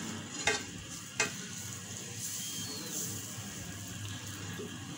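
Garlic-ginger paste sizzling in oil in a nonstick frying pan while a wooden spatula stirs it, with two light taps about half a second and a second in.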